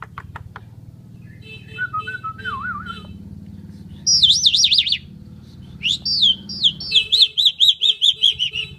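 Asian pied starling (jalak suren) singing: soft warbling, then a loud wavering whistle about four seconds in, followed by sliding notes and a fast run of repeated whistled notes, about five a second.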